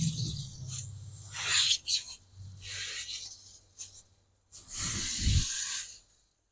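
Hose pipe spraying water onto the Cummins diesel engine block in three separate bursts of hiss, with short pauses between them.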